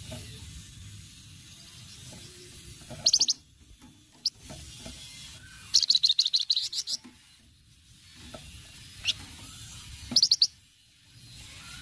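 Flamboyan songbird giving rapid rattling chatters: three bursts of fast repeated high notes, the longest about a second, with single sharp notes in between.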